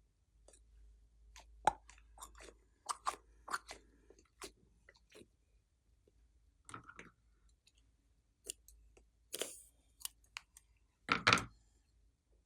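Glossy slime being squished and poked by hand, giving irregular sticky clicks and little crackly pops, with the loudest squelch near the end.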